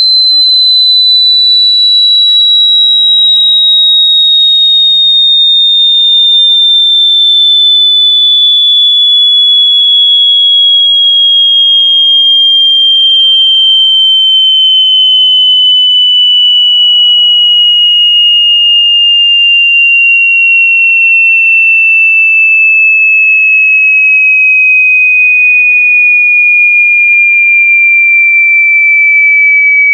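Electronic sine tone held loud and steady while gliding slowly down in pitch, from high to somewhat lower. A much fainter second tone sweeps down to the very bottom about two seconds in, then rises steadily the rest of the time.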